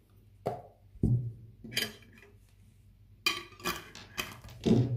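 Glass jars with metal screw lids knocking and clinking as they are turned upside down and set down on a stone counter, about seven separate knocks. The filled jars are inverted so that the lids seal.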